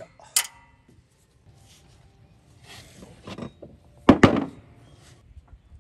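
Hand tools working on a forklift's wheel and drum-brake assembly: a sharp metallic hammer strike just after the start, some scraping around three seconds in, then two heavy metal knocks about four seconds in.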